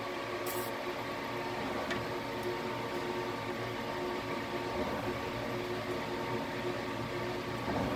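Haas TL-1 CNC lathe running with its spindle and chuck turning a barrel blank, a steady machine whine. A short hiss from an aerosol spray can about half a second in.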